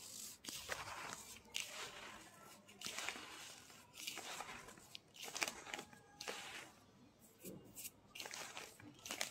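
A hand squeezing and kneading naphthalene powder mixed with kerosene in a plastic bowl: a crunching rustle in short repeated bursts, about one a second.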